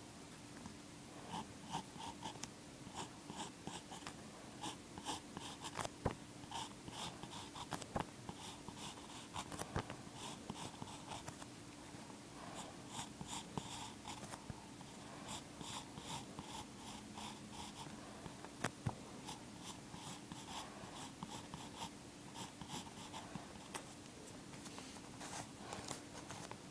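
Pencil scratching on paper in many short, quick strokes, with a few sharper taps along the way and a faint steady hum underneath.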